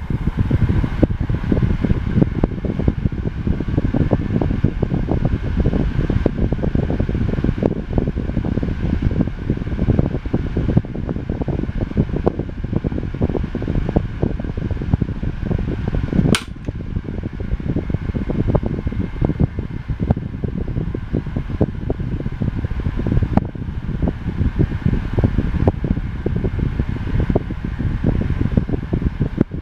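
Tatung LE-9 9-inch electric table fan running: a steady rush of air with a rough low flutter and a faint motor whine. A sharp click comes about halfway through, after which the fan runs a little quieter.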